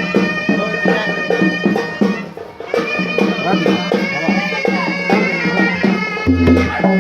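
Traditional village baaja band music: a nasal reed pipe playing a wavering melody over a steady drone, with quick drum beats. A deep booming beat joins about six seconds in.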